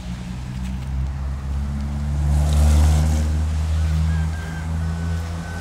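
A motor vehicle's engine running close by, a loud steady low drone that swells about halfway through.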